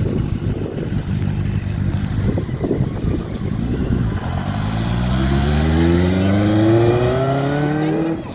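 Benelli TNT 600i's 600 cc inline-four engine running, then accelerating from about halfway in, its pitch rising steadily before it cuts off abruptly.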